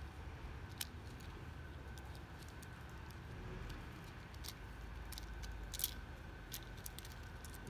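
Scattered small clicks and light rattles of a slim line blind's control chain and plastic parts being handled during a chain replacement, over a faint steady hum.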